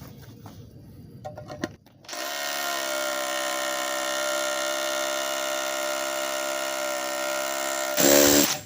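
Craftsman CMCH233B brushless SDS-plus rotary hammer drilling into a concrete slab in hammer-drill mode. It starts about two seconds in, runs steadily for about six seconds, then briefly gets louder just before it stops.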